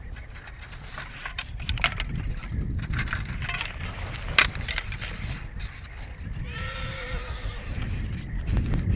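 Arrows rattling and clicking against each other and the bow as a handful is pulled from a quiver and gathered in the hand, with one sharp clack about four seconds in. A horse whinnies briefly about seven seconds in.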